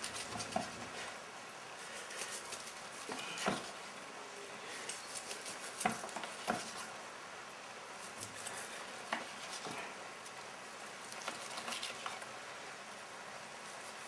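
Long carving knife sawing through a roast pork loin on a wooden board: faint scraping, with a few short knocks and clicks scattered through.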